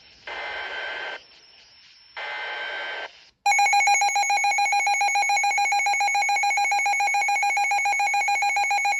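Two short warbling data bursts of an emergency-alert (SAME) header, then a loud, rapidly pulsing alert tone from a Midland HH54 weather radio that has decoded a Civil Danger Warning and gone into alarm.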